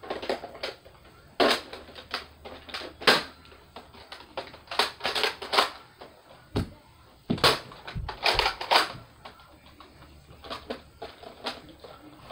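Irregular plastic clacks and knocks, with a few heavier thuds about halfway through, from Nerf foam-dart blasters being handled, primed and fired during play.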